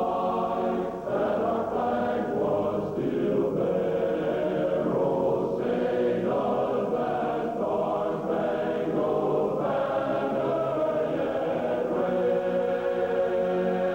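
A choir singing slow, held chords phrase by phrase, sounding muffled with the highs cut off.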